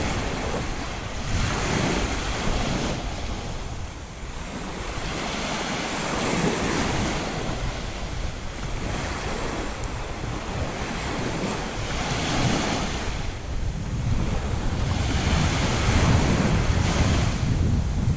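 Small sea waves breaking and washing up on a sandy beach, the surf swelling and fading every few seconds. Wind buffets the microphone with a low rumble.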